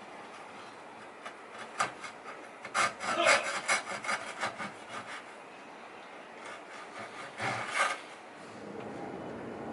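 Hand tool working wood in short, irregular strokes, with a quick run of them in the middle and a couple more near the end.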